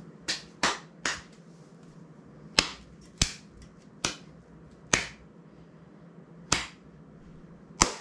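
Nine sharp clicks or snaps at uneven intervals, each with a brief room echo.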